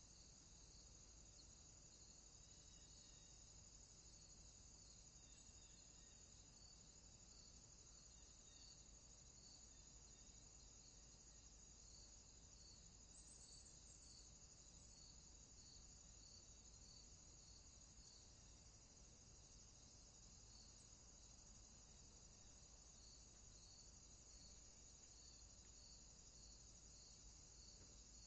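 Faint insect chorus on a warm afternoon: a steady high-pitched trill with a short chirp repeating at an even pace, a little more than once a second, over a faint low background hum.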